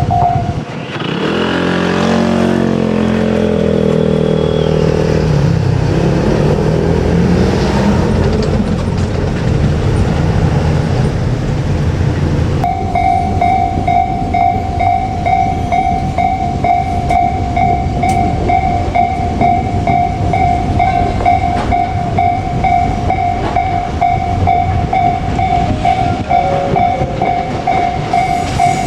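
A Japanese railway level-crossing warning bell ringing in a steady pulsing tone, which cuts off about a second in. Then a JR Kyushu 787 series electric train is heard running, with motor tones that step and glide in pitch over a rumble. About thirteen seconds in the crossing bell starts ringing again and keeps going.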